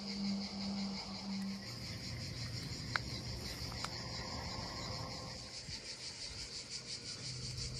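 Insects chirring in summer vegetation: a steady, high-pitched, finely pulsing chorus, with a faint low hum beneath and two faint ticks about three and four seconds in.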